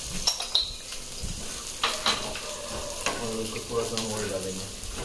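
Basa fish pieces sizzling steadily as they fry in a pan. A spatula scrapes and taps against the pan a couple of times about two seconds in as the salted fish is stirred gently to keep it from sticking.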